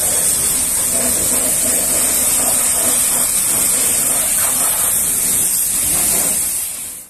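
Pressure washer spraying water: a steady, loud hiss that fades out near the end.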